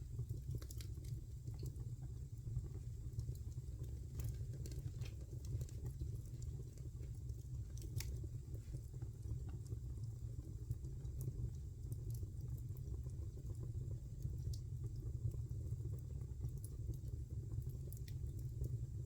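Wood fire burning in a fireplace, crackling: irregular sharp pops and snaps over a steady low rumble of the flames.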